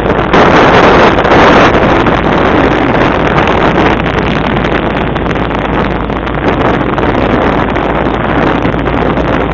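Wind buffeting the microphone over the steady running of a motor launch's outboard engine, as the launch follows a rowing boat.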